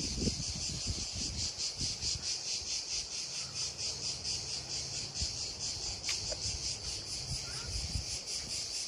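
A chorus of cicadas: a high buzz that pulses rapidly and evenly.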